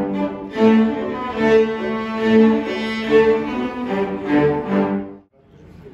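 Ensemble of cellos playing together in sustained bowed notes, stopping abruptly about five seconds in.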